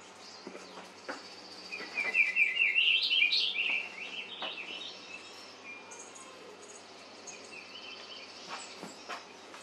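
Small birds chirping and singing from a bird video played through a TV's speakers: a fast, loud run of chirps about two seconds in lasting a couple of seconds, then fainter scattered calls. A few short soft taps are heard now and then.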